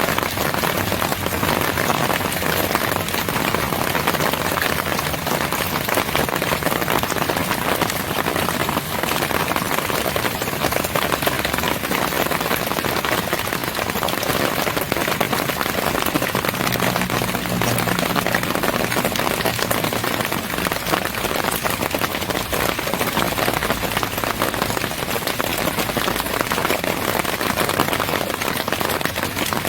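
Steady rain falling, a dense even hiss of countless drops. A low rumble swells briefly about seventeen seconds in.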